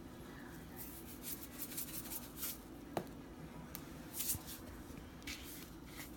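Faint short scraping and rustling sounds from working a cookie batter in a mug, several in a row, with one sharp tap about three seconds in.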